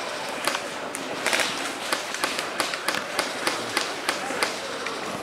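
Airsoft guns firing: irregular sharp snaps, a few a second, more of them from about a second in.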